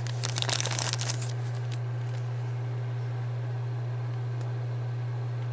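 Plastic packaging crinkling as a miniature is unwrapped from a booster pack, for about the first second. After that only a steady low hum remains.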